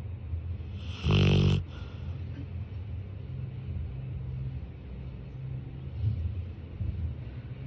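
A sleeping retriever snoring, with one loud, rough snore about a second in and a low rumble of breathing for the rest.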